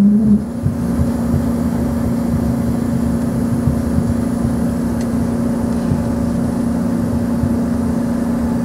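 Cabin noise of an Embraer ERJ-145XR taxiing: a steady hum from its rear-mounted Rolls-Royce AE3007 turbofans at idle, over a rough rumble from the landing gear rolling on the taxiway.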